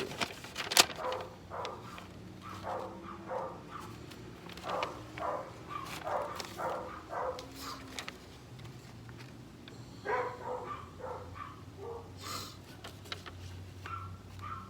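A dog barking in runs of short barks, several a second, stopping about eight seconds in and starting again about two seconds later. A sharp click sounds just under a second in, and a faint steady low hum runs underneath.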